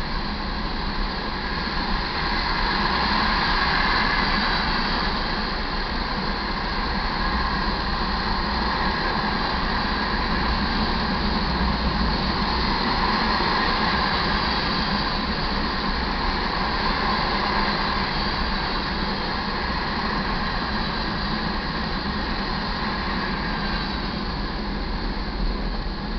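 Iron ore train's freight cars rolling past, a steady noise of steel wheels on rail that swells and eases gently a few times.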